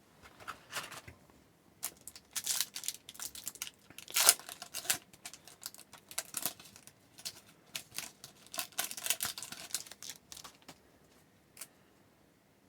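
A trading-card pack's wrapper being torn open and crinkled, in irregular runs of short crackling and rustling, loudest about four seconds in.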